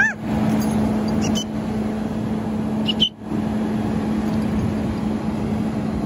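Fire engine running steadily with a constant low hum. A short bird squawk right at the start, and two brief high chirps about a second and a half and three seconds in.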